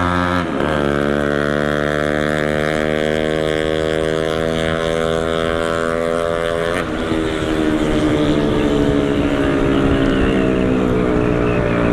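Motorcycle engine under full-throttle acceleration, heard from on board. Its pitch climbs steadily, drops at an upshift just after the start and again about seven seconds in, then climbs again.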